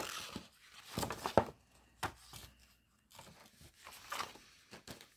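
Printed cross-stitch pattern sheets rustling and crinkling as they are handled and shuffled: a run of short rustles, with the sharpest crackles just over a second in.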